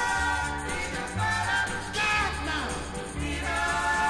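Background music: a song with a bass line that changes note about once a second.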